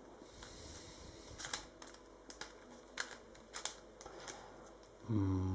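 Plastic QiYi Clover Pyraminx puzzle being turned by hand: light, irregular clicks of the pieces as the layers are twisted, about half a dozen in a few seconds. A person's voice makes a short sound near the end.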